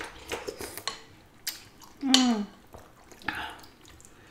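Close-up eating sounds: noodles being slurped and chewed from bowls of soup, with light clicks of spoons and forks on the bowls. A brief falling voice sound, like an "mm", is the loudest thing, about two seconds in.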